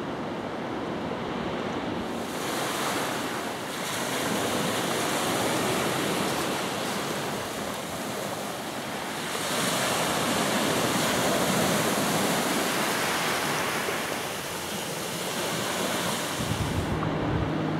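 Ocean surf breaking and washing up a sandy beach, with wind buffeting the microphone. The wash swells louder twice, briefly early on and for several seconds in the middle.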